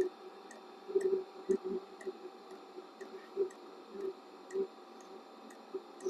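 Modified diesel heater running on hot oil: a steady hum with a light tick about twice a second, and a few louder knocks in the first two seconds.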